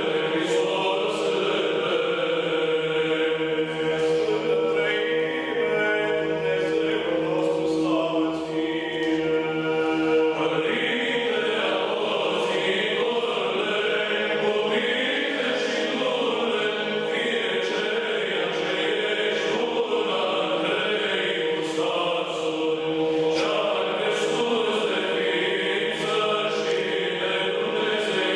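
Background music: Orthodox church chant sung by a choir, several voices in slow, held lines over a steady sustained note.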